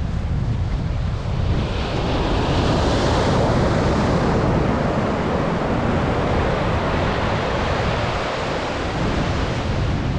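Atlantic surf breaking and washing up the beach, its hiss swelling about a second and a half in and fading over several seconds, with wind rumbling on the microphone.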